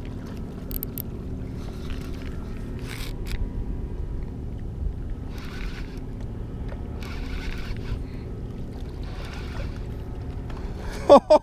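Steady low rumble of wind and water at a rocky shoreline, with a few faint soft hisses. A voice calls out briefly near the end.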